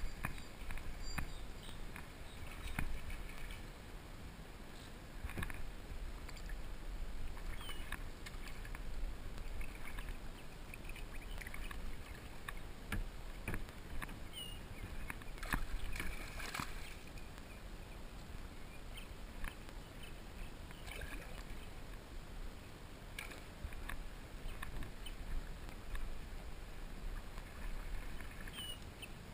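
A plastic kayak being paddled: the paddle blades dipping, splashing and dripping, with scattered light knocks, over a steady low rumble.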